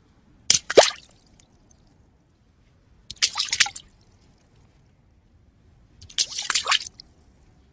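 Three separate short water splashes, about three seconds apart, each under a second long. The first is a quick double splash ending in a falling plop.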